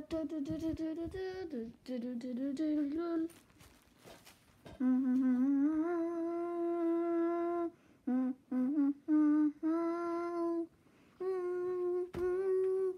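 A child humming a wordless tune in short phrases with brief pauses, including one longer held note around the middle.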